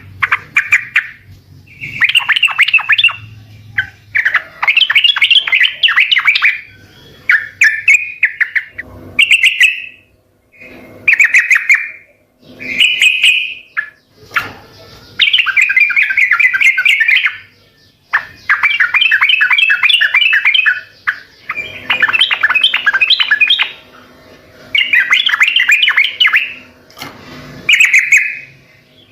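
Yellow-vented bulbul (trucukan) singing loudly: bubbly, chattering phrases of rapid notes, each lasting one to three seconds, repeated over and over with short pauses between them.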